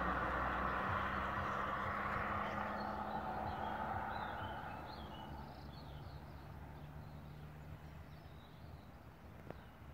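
A passing vehicle's noise with a low hum fades away over about five seconds. Birds chirp as it dies down, and there is a single click near the end.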